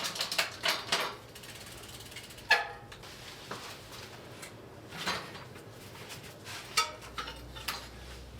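Metal clicks and knocks from a mountain bike's rear wheel being taken out of the frame. A quick run of ticks in the first second, a sharp metallic clank with a short ring about two and a half seconds in, and a few lighter knocks later.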